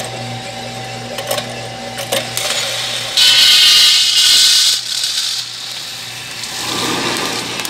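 A 2 kg Lysander drum coffee roaster running with a steady hum and a few clicks. About three seconds in, the roasted beans rush out of the drum door into the cooling tray with a loud hiss for about a second and a half, and the beans keep sliding into the tray afterwards.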